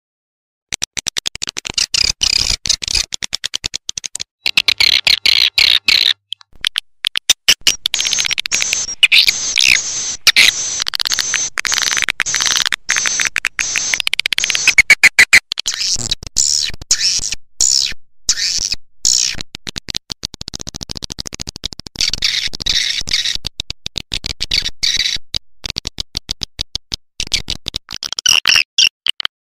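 Swiftlet lure recording: the dense, rapid, high chirping and twittering of edible-nest swiftlets, played to call the birds to a swiftlet house. It starts about a second in.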